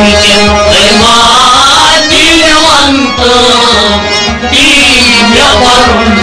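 Kashmiri Sufi song: a man singing a winding melody over instrumental accompaniment and a steady, rhythmic drum beat.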